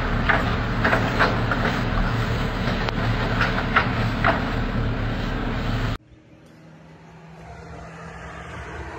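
A Brother laser printer running and feeding paper: a steady mechanical hum with short rasping sounds every half second or so. It cuts off abruptly about six seconds in, giving way to a faint, slowly rising outdoor rumble.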